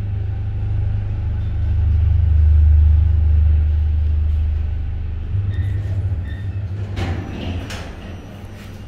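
1988 KONE M-series 4000 kg cargo lift travelling with a steady low rumble that eases off about halfway through as the car slows to a stop. Two short beeps follow, then a couple of sharp clunks as the car stops and the doors get ready to open.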